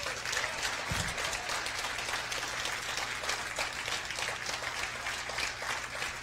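Audience applauding: many people clapping at once. It starts suddenly and keeps up at a steady level.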